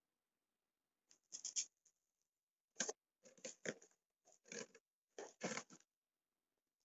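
Packing tape on a cardboard box being cut and scraped open: several short bursts of scratching and cutting.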